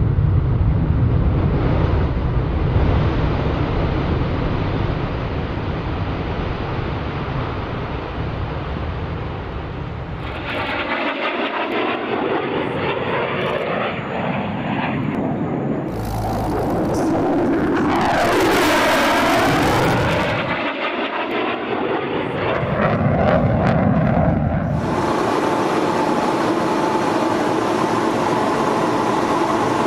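F-16 Fighting Falcon jet engine: a steady low rumble for about the first ten seconds, then the whine of the jet flying past, its pitch sliding down and back up, settling into a steadier engine sound near the end.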